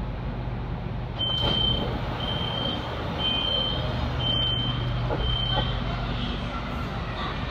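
Five high-pitched beeps of one steady tone, about one a second, over the low steady hum of a CRRC Zhuzhou-built Shenzhen Metro Line 11 electric train, the pattern of a metro door-closing warning.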